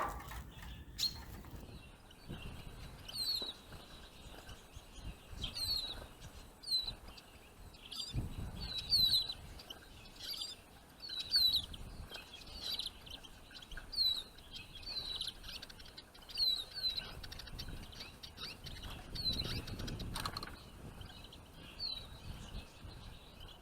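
A small songbird giving short, high, down-slurred call notes over and over at an uneven pace, then falling silent near the end. Two brief low rumbles come through, about a third of the way in and again near the end.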